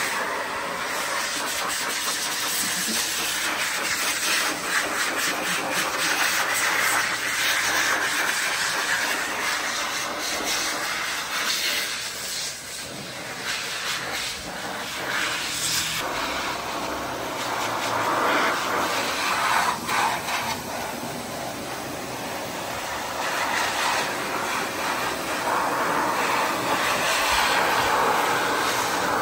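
Pet grooming blower (hose-fed forced-air dryer) running, its air rushing out of the nozzle to dry a cat's damp fur. The hiss swells and eases as the nozzle is moved over the cat.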